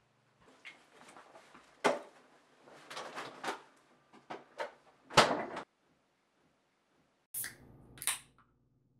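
Kitchen handling clatter around an open refrigerator: a string of knocks and bumps, the sharpest about two and five seconds in, then two short hissing sounds near the end.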